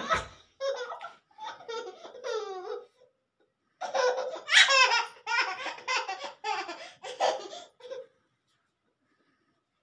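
High-pitched laughter in two runs of short bursts, the second run louder, with a sharp knock right at the start.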